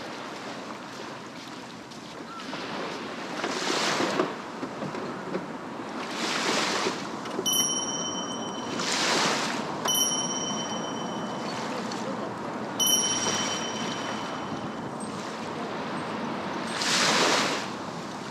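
Small waves breaking on a sand beach, surging up every few seconds over a steady wash, with wind on the microphone. Around the middle, three electronic chimes, each a steady two-note ring of about two seconds.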